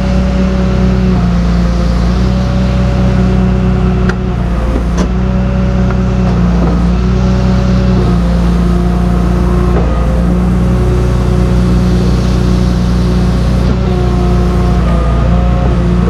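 Tow truck engine running steadily at a held speed, its pitch stepping slightly up and down now and then. Two brief sharp clicks about four and five seconds in.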